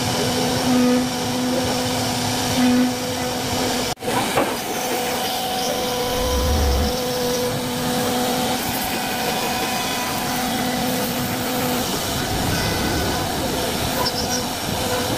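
CNC wood router carving a wooden door panel: the spindle runs steadily with a held hum of several tones over the hiss of the cutter in the wood. It breaks off for an instant about four seconds in.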